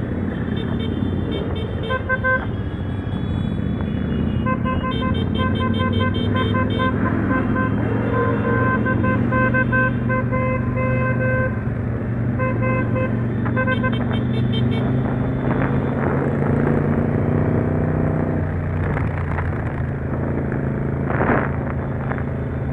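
Motorcycle engines running in a large group ride, with horns tooting in rapid runs of short repeated beeps that come and go for the first fifteen seconds or so. A brief louder burst stands out near the end.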